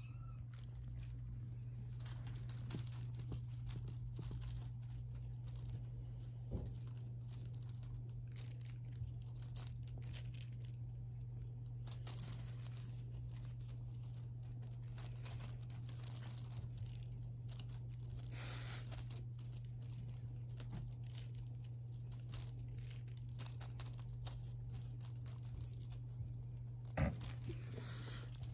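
Scratchy crackling and rustling as a colorpoint British Longhair kitten bats at a feather wand toy and claws at a fabric blanket. Many short, scattered scratches, with a longer swishing stretch past the middle and a sharper flurry near the end, over a steady low hum.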